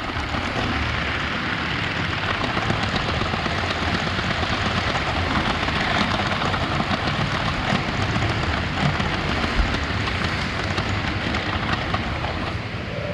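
Lego 9V train running along its track: a steady noisy rumble with faint clicks.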